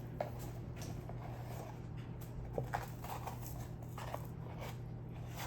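A spoon scraping and clicking lightly in a container of baking soda as it is scooped, with soft scattered ticks over a steady low hum.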